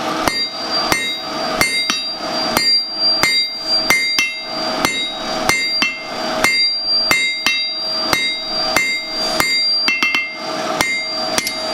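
Hand hammer striking hot steel on an anvil in a steady run of blows, about two a second, with the anvil ringing after each one. This is the forging of the shoulders where a leaf meets its stem.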